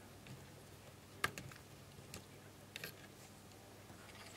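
A few light clicks and taps from a screwdriver and wires being handled at a contactor terminal block, the sharpest click about a second in.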